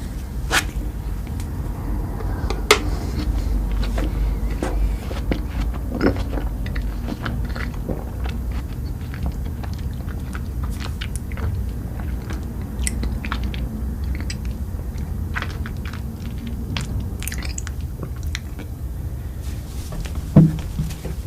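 Close-up chewing and biting of food, with many short crunchy clicks scattered through a steady low rumble, and a louder dull thump near the end.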